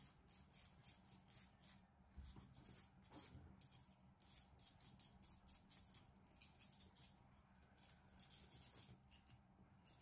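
Faint, quick, irregular scratching of a bristle brush scrubbing coffee grounds off the conical burr of a Baratza Sette 270 grinder, pausing briefly near the end.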